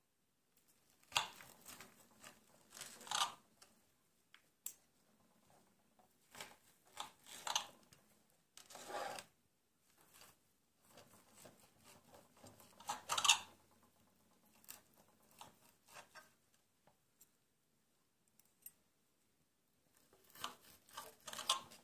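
Steak knife sawing through a grilled ribeye on a ceramic plate, the blade scraping against the plate, with a fork holding the meat. It comes in several separate bouts of quick back-and-forth strokes with short pauses between.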